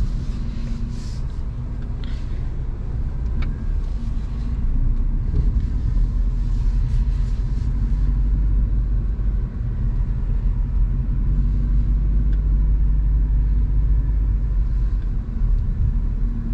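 Low, steady rumble of engine and tyres heard from inside the cabin of a Chevrolet Spark GT driving slowly through a car park. It grows slightly louder about five seconds in.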